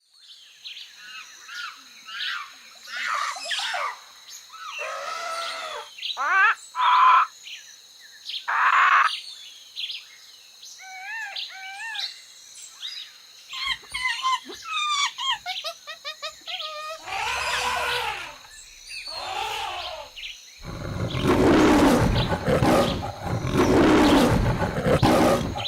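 A string of cartoon sound effects: many short gliding whistles and chirps, then a loud lion roar over the last few seconds.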